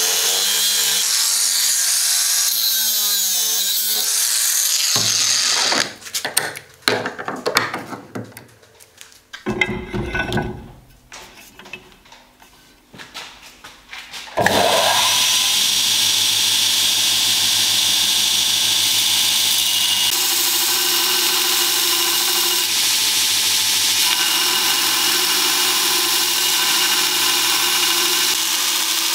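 Abrasive cut-off saw cutting through steel tubing, its motor pitch dipping as the wheel bites, then stopping about six seconds in. A stretch of irregular knocks and clicks follows, and about halfway through a belt grinder starts up and runs steadily, grinding steel.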